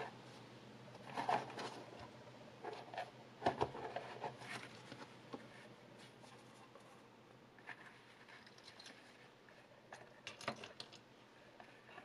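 Hands opening a black cardboard watch box and lifting out its foam pads: scattered quiet taps, scrapes and rustles of the packaging, clustered in a few brief bursts.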